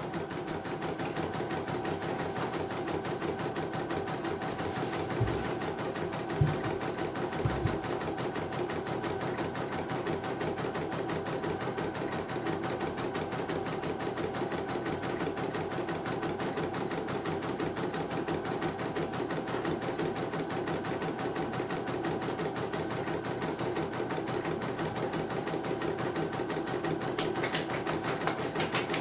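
CNY computerized embroidery machine stitching a design into stabilizer in its hoop, a steady rapid run of needle strokes with the hoop mechanism moving. It is a test run after repair of a machine that came in completely dead. A few short low knocks sound about five to eight seconds in.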